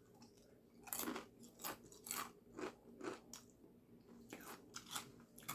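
Close-up chewing of a grinder sandwich: a run of soft crunches and chews, a few a second, with a short pause about two-thirds of the way through.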